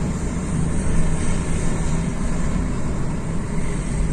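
Steady engine and tyre noise from inside the cabin of a moving car.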